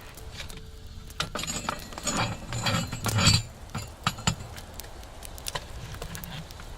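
A quick run of clinks and knocks of hard objects being handled, thickest and loudest about three seconds in, over a steady low rumble.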